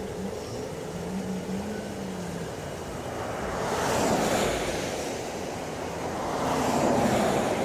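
Highway traffic passing: a steady rush of tyre and wind noise that swells twice, about four seconds in and again near the end, as vehicles go by.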